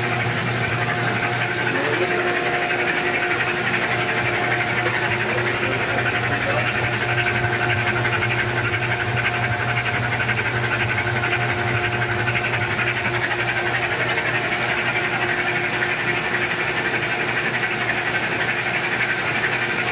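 Toyota 2JZ inline-six engine being spun steadily on a Simtester engine test stand, turned by the machine rather than firing, with oil streaming off the crankshaft into the pan.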